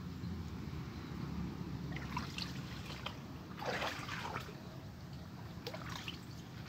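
Water trickling and splashing in a small, water-filled muddy hole, in three short splashes about two seconds apart.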